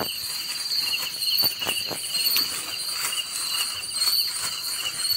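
Steady night-time chorus of crickets chirping, with a few soft clicks and rustles from footsteps in grass.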